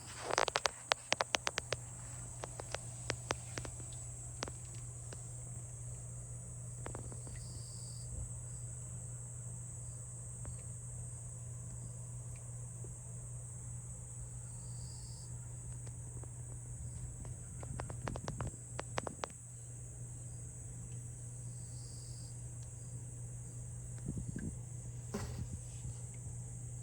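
Steady high-pitched insect trill, with a low steady hum beneath. Sharp clicks come in a quick run during the first few seconds and again about 18 seconds in.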